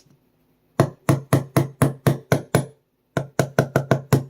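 Gunsmith hammer tapping a tight trigger pin into a Sig Sauer P365 frame: a run of about eight sharp knocks at roughly four a second, a short pause, then quicker taps. The pin is binding and won't go in, which the owner later puts down to the aftermarket trigger not lining up with the pin hole.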